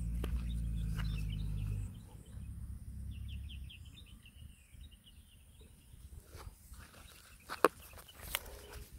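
A low steady hum that cuts off about two seconds in, then a quick run of bird chirps, with a few sharp handling knocks near the end as a phone is moved about.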